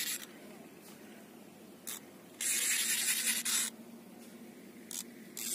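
Fishing reel buzzing in bursts of about a second while a hooked fish pulls on the bent rod, with quieter stretches between.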